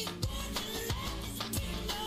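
Music with a steady beat and a melodic line over a bass line.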